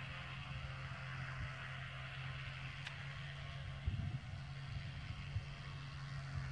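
Microlight aircraft engine running with a steady, distant drone on the ground before take-off. A few low bumps come about four seconds in.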